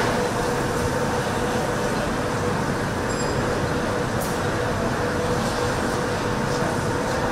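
Steady machinery hum and air noise of a car assembly hall, with a constant tone and a few faint clicks.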